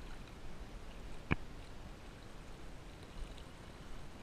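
Cast net being hauled in through shallow water: faint water sounds, with one sharp click just over a second in.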